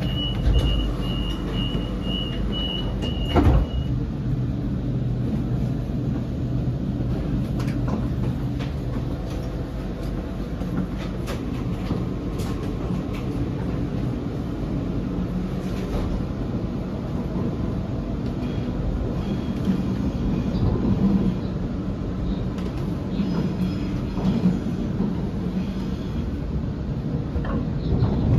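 Sydney suburban electric train: a rapid series of high door-warning beeps for the first few seconds, ending with a thump as the doors close, then the train's steady low running rumble.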